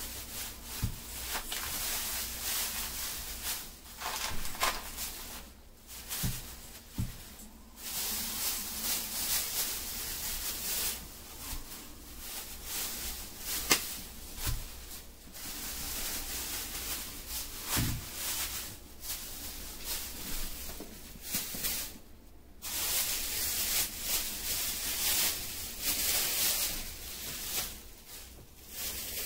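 Thin plastic produce bags rustling and crinkling in uneven bursts as fruit is taken out of them and set down, with a few light knocks.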